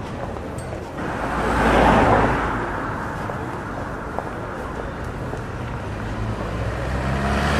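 Road traffic: a vehicle passes, its noise swelling about two seconds in and fading, over a steady low engine hum. Another vehicle approaches near the end.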